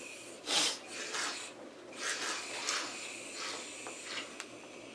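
Aerosol can of shaving cream dispensing foam in a series of short, irregular hissing spurts.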